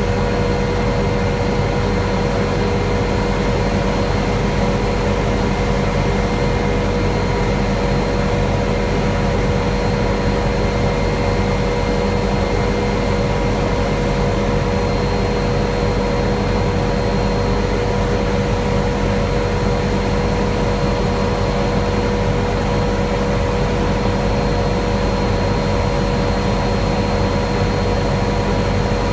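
Helicopter in cruise flight: a steady drone of rotor and engine with a constant whine over it.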